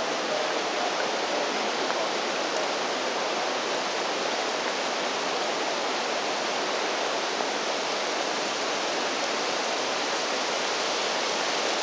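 Small spring-fed waterfall pouring and splashing steadily down a rock wall, an even rushing of water.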